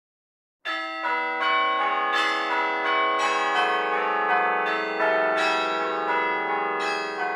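Bells ringing in a run of overlapping strikes, a new note about every half second, starting about half a second in and beginning to die away near the end.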